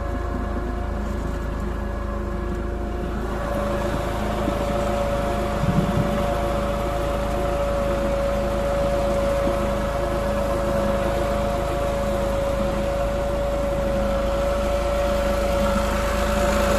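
Tractor engine running steadily as the driverless tractor pulls a potato planter, with a steady whine that comes in about three seconds in.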